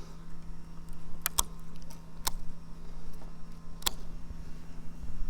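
Sharp clicks and snaps, about four spaced over a few seconds, as small twigs are cut off a bay tree branch, over a steady low hum.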